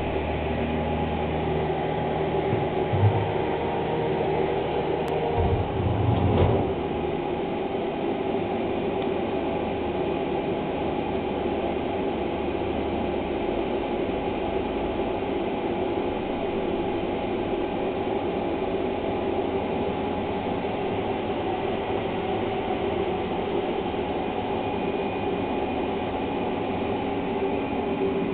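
Steady mechanical running noise with several held hums, a knock about three seconds in and a brief heavier low rumble around six seconds.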